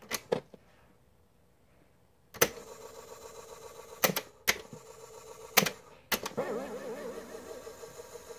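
The piano-key transport buttons of a GE 3-5631A boombox's cassette deck clunk down and release about seven times. Between presses the tape mechanism's motor whirs steadily.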